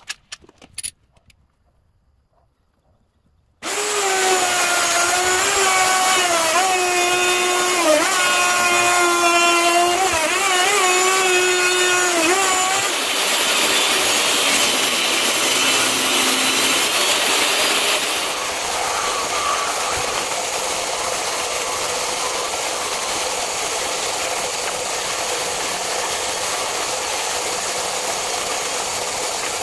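A few clicks, then a table saw starts suddenly and runs with a whining blade, cutting through a wooden board. Near the end a disc sander runs steadily, grinding the board's edge.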